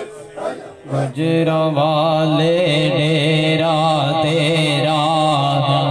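A group of men chanting zikr in a short rhythmic pulse, about two beats a second. About a second in, a single male voice takes over and holds a long, ornamented, wavering devotional chant line, steady and loud.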